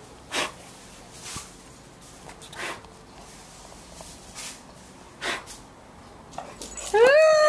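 Short puffs of air blown at a dog, one every second or two. Near the end a loud, drawn-out, high-pitched voice cuts in and holds its note.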